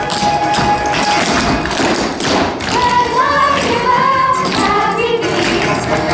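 Tap dancing: quick, repeated strikes of shoes on a stage floor over accompaniment music, with voices singing from about halfway through.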